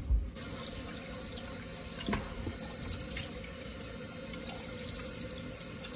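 Water from a tap running into a sink, a steady rush that starts just after a low thump, with a knock about two seconds in.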